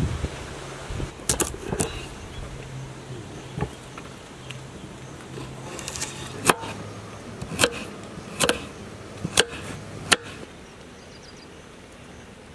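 Kitchen knife slicing a raw carrot on a wooden chopping board: a string of sharp, crisp knocks as the blade cuts through and strikes the board, about eight cuts at an uneven pace, stopping about ten seconds in.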